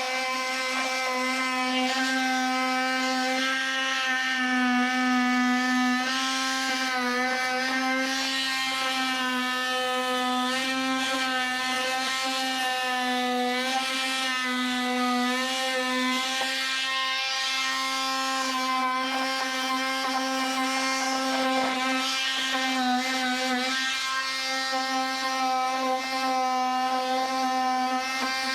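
Handheld power tool running steadily with a high buzzing whine, cutting a recess into layered drywall and paneling.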